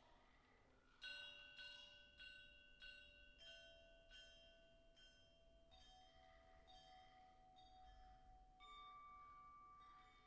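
Mallet percussion playing a slow line of single struck notes, about one every 0.6 s from about a second in, each ringing on after it is hit. A louder note near the end rings on steadily.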